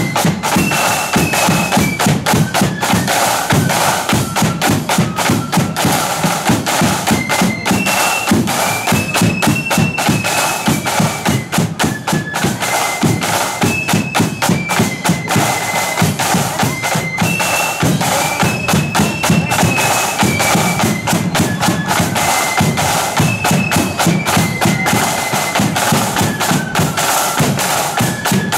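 Marching flute band playing: a high, stepping flute melody over heavy, rapid drumming from bass and snare drums.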